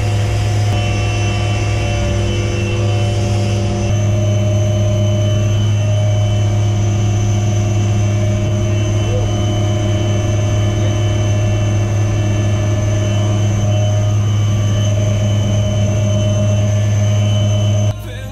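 Military helicopter running, heard from inside its cabin: a loud, steady drone made of a strong low hum with several steady higher tones over it. It cuts off suddenly near the end.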